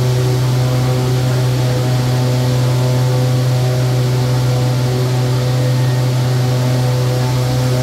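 Fingerless single facer on a corrugating line running steadily: a loud, even low hum with several steady higher tones above it and a hiss, as paper webs feed in and single-face board runs out onto the bridge.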